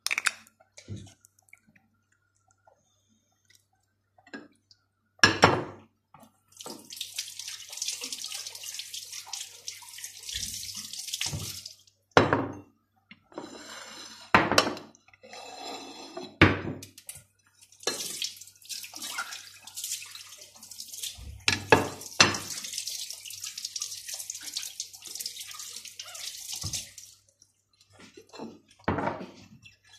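Water running from a kitchen tap in two spells, one of about five seconds and a longer one of about nine seconds, with sharp knocks in between.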